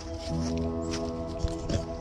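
Background music of sustained chords that change about a third of a second in, with two short knocks near the end.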